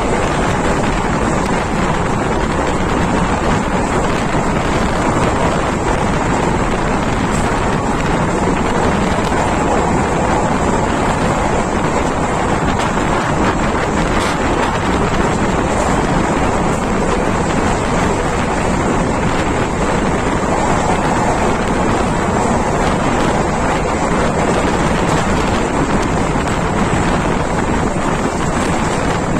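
Steady wind rushing over a microphone held out of a moving Indian Railways passenger coach's window, mixed with the train's running noise on the track.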